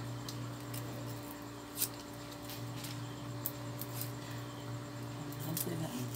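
Small knife and fingers peeling garlic cloves: scattered, irregular crisp clicks and snips of the blade and papery skins, over a steady low hum.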